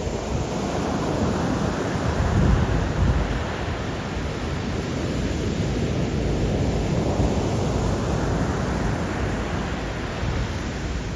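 Stormy sea surf: waves breaking and washing in a continuous low rumbling roar, with wind on the microphone. A bigger wave surges about two and a half seconds in.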